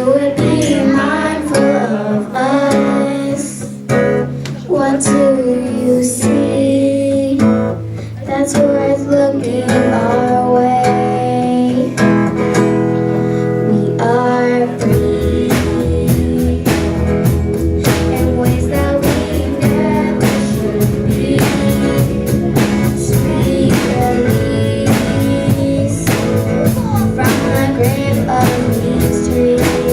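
A live band plays the instrumental intro of a worship song, led by guitar; about halfway in, drums and the full band come in with a steady beat.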